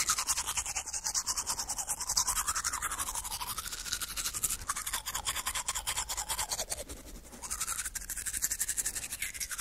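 Teeth being brushed with a toothbrush: rapid scrubbing strokes, briefly softer about seven seconds in.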